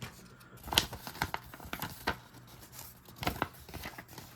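Small Aogami Warikomi pocket knife being tested for sharpness: the blade is drawn through material in several short, sharp cutting strokes, the loudest a little under a second in and again just past three seconds.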